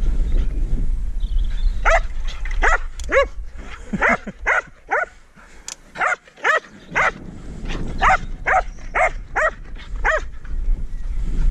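Border collie barking in quick, repeated short barks, each falling slightly in pitch, in irregular runs with a brief pause midway.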